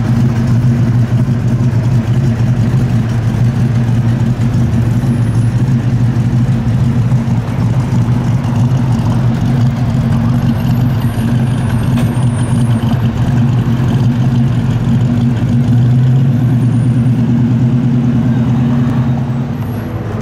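1969 Dodge Charger's V8 engine idling steadily.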